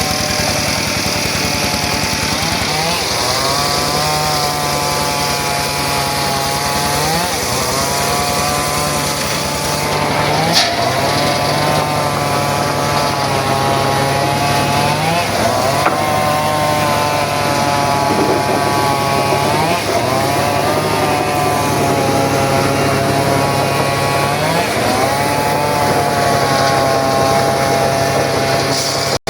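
Circular saw cutting very hard sogho wood: a loud, steady machine whine whose pitch sags and then climbs back about every four to five seconds as the blade is loaded in the cut, with a couple of brief sharp ticks.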